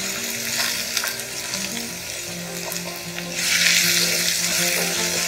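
Chopped pineapple sizzling in hot oil with mustard seeds and curry leaves in a non-stick pan, the sizzle growing much louder about three and a half seconds in as the chunks are stirred with a wooden spatula.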